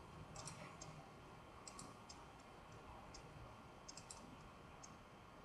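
Several faint computer mouse clicks, irregularly spaced, over near-silent room tone.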